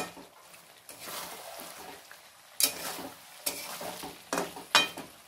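Flat metal spatula stirring chicken curry in a steel kadhai, with a few sharp scrapes and knocks against the pan in the second half over a faint sizzle of the cooking oil.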